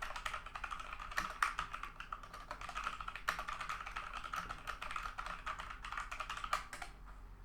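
Typing at regular speed on a Logitech G413 mechanical keyboard with Romer-G tactile switches: a quick, uneven run of key clicks that stops shortly before the end.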